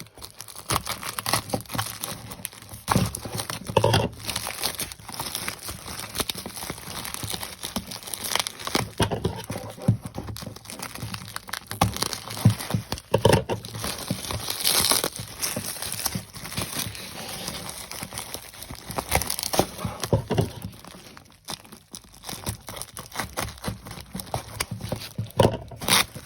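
Packing wrapping crinkled, rustled and torn as it is pulled off a built Lego model, with irregular crackles and snaps that grow sparser near the end.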